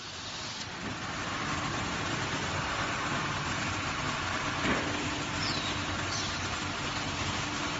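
Wide belt plywood sanding line running: a steady mechanical din with a low hum and a short knock about halfway through.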